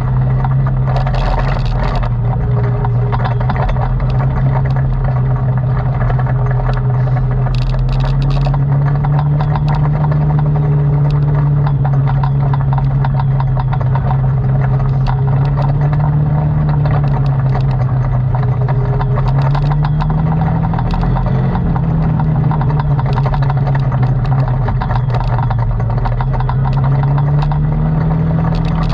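ATV engine running under way, its pitch rising and falling gently with the throttle, with frequent rattles and clicks over the top.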